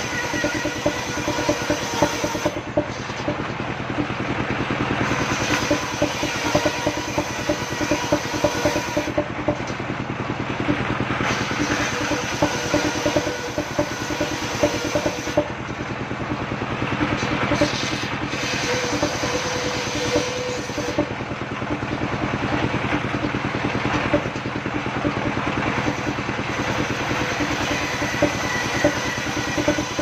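Engine-driven mobile circular sawmill running at a steady, fast beat while its blade rips wooden planks into battens. The hiss of the cut rises and falls as the boards are fed through.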